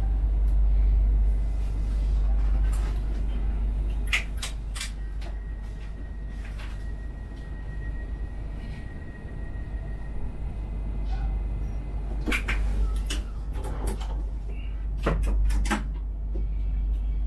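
Steady low hum of a standing Talent 3 electric multiple unit, heard from the driver's cab. Clusters of sharp clicks and knocks come about four seconds in and again in the second half, and a faint steady high tone sounds for a few seconds in between.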